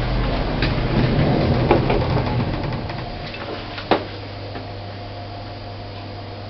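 Modernised 1930s Waygood Otis lift running: a steady electric hum with a few sharp clicks. It is fuller for the first few seconds, then settles to a quieter steady hum after a click about four seconds in.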